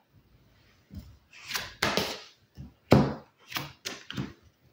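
Tarot and oracle cards being dealt and laid down on a wooden tabletop: a run of about eight short slaps and swishes of card stock against wood, the loudest about three seconds in.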